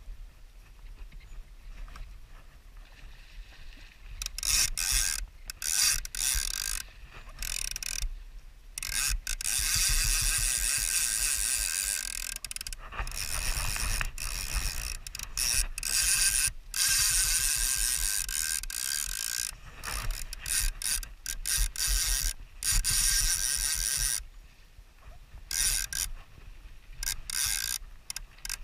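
Fly reel's click-and-pawl ratchet buzzing in repeated bursts, some a second or two long and a few longer, as line goes out and is wound back while a hooked fish is played. It starts about four seconds in, with quiet gaps between the bursts and a low rumble underneath.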